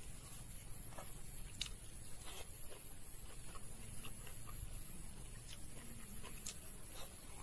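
Faint eating sounds: chewing and lip smacks, with fingers mixing rice on a plate, heard as a scatter of small wet clicks.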